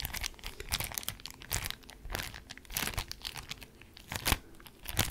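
Clear plastic packet of puffy stickers crinkling as it is handled close to the microphone, with irregular crackles throughout.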